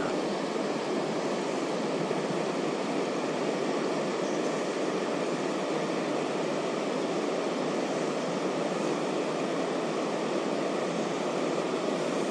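River water rushing steadily over a shallow rocky riffle, a constant even wash with no separate splashes.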